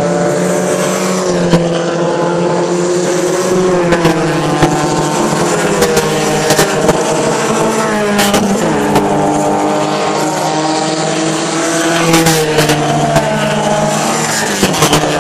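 Porsche 944 race cars' four-cylinder engines running hard as the cars pass close by, one after another. The engine pitch rises and falls, and two cars are heard at once in places. There are several short sharp clicks along the way.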